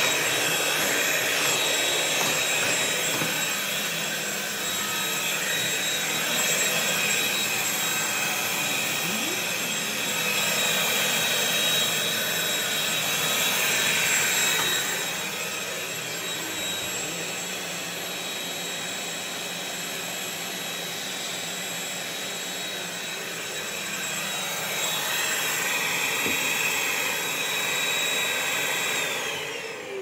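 Corded stick vacuum cleaner running: a steady high motor whine over rushing air as it vacuums the rug and floor, a little quieter for a stretch in the middle. Near the end the motor is switched off and its whine falls away as it winds down.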